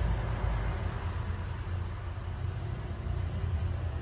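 Steady low rumble with an even hiss over it and no distinct events.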